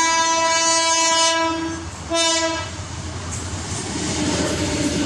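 Diesel locomotive horn sounding one long blast and then a short one about two seconds in. The passing locomotive's rumble and wheel noise on the rails follow.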